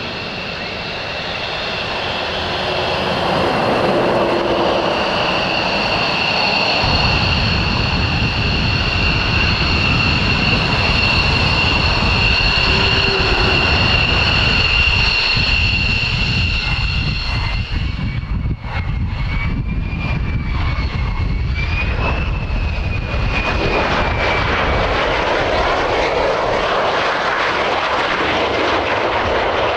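F-15C Eagle's twin jet engines running at high power for takeoff: a loud steady high turbine whine over a jet rumble that deepens about a quarter of the way in. Past the middle the whine stops and another jet's rumble with a wavering whine carries on, from an F-35 coming in to land.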